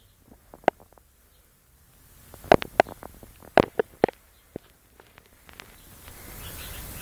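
Sharp clicks and knocks, one early and a quick cluster of them about halfway through, then a soft hiss that builds near the end.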